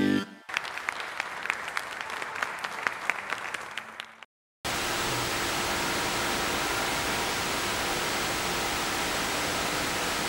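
Audience applause, many sharp claps fading out over about four seconds, then a moment of dead silence, then a steady, even static hiss that sets in and holds without change.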